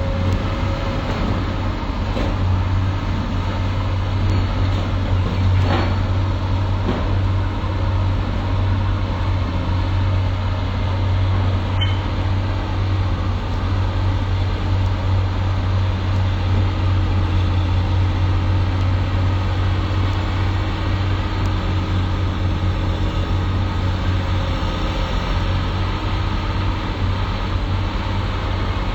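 Excavator's diesel engine running steadily, a deep, even drone with no revving.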